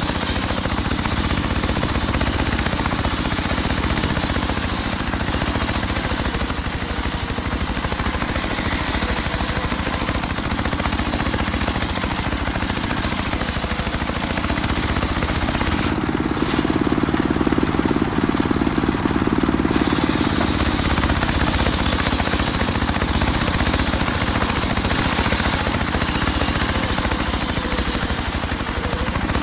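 Homemade circular saw rig running steadily as it rips mahogany wood lengthwise, a continuous loud mechanical drone. The drone swells briefly a little past the middle.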